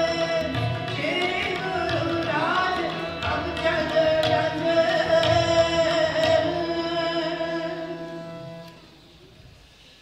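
Sikh kirtan: harmonium playing sustained chords with tabla strokes and a voice singing over them. The music dies away about a second before the end.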